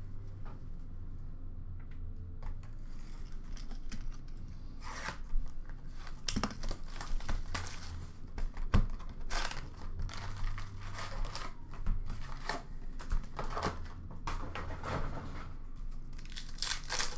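Hockey card retail box and card packs being torn open by hand: a run of irregular ripping and crinkling of cardboard and wrappers, with a few sharp knocks as the box is handled.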